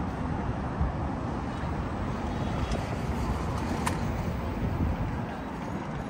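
Steady city road-traffic noise, a low continuous rumble of vehicles, with one short sharp click about four seconds in.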